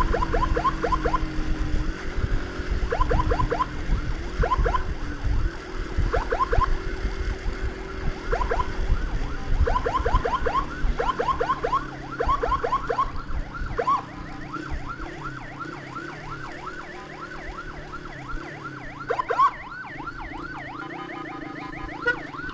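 Electronic emergency siren sounding a fast yelp: short rising chirps, several a second, coming in bursts with short gaps. Underneath is the low rumble of wind and the motorcycle's engine, heaviest in the first half.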